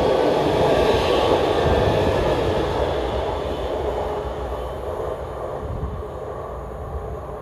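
Øresundståg electric multiple unit running past and away along the track, its running noise loud at first and fading steadily from about three seconds in as it recedes.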